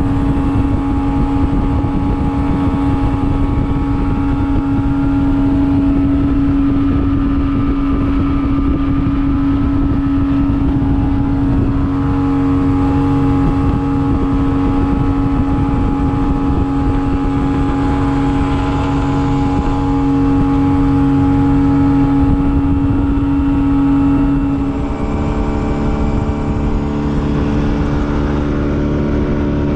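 Boat's outboard motor running steadily at cruising speed, with a rush of wind and water under the hull. About 25 seconds in, the engine note shifts.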